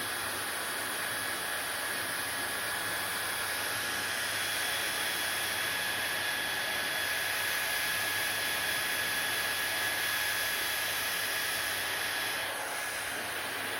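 Hair dryer running steadily: a continuous rush of air with a thin high whine. It dips slightly in level near the end.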